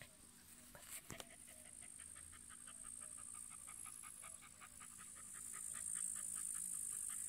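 A dog panting hard with its mouth open, quick even breaths about five a second, after digging. Behind it is a steady high chirring of insects that grows louder near the end.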